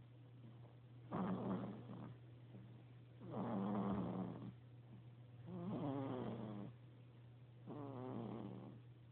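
Snoring: four drawn-out snores, each about a second long, coming about every two seconds over a steady low hum.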